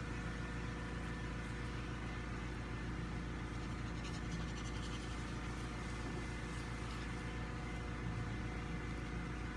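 A steady low hum from a running electric motor, unchanging throughout, with a few faint scratchy rustles about four seconds in.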